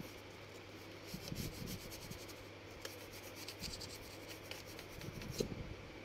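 Faint rubbing and scratching of a small cleaning tool scrubbing inside a laptop's RAM slot, in irregular short strokes, to clean dirt off the memory contacts.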